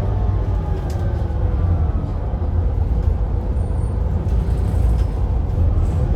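Volvo B7RLE bus's diesel engine and ZF EcoLife automatic gearbox running: a steady low rumble with a faint whine that slowly rises and falls in pitch.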